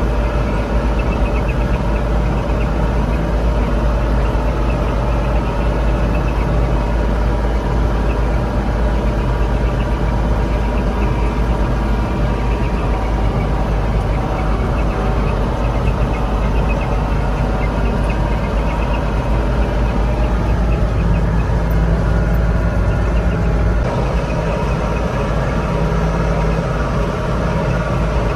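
Tractor engine running steadily under load while pulling a small square baler in the hayfield, with the baler working behind it.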